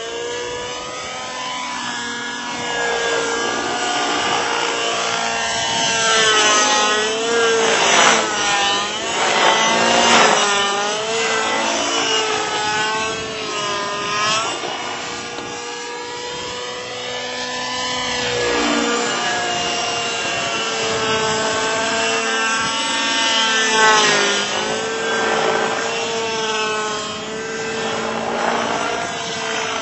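Robbe Millenium 2 radio-controlled helicopter flying aerobatics: a steady engine and rotor note whose pitch wavers, swooping down and up several times as it manoeuvres, most strongly in the middle and again near the end.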